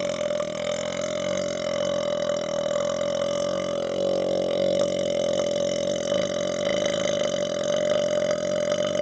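A man's long, unbroken burp at a steady pitch, brought up by chugging Dr Pepper.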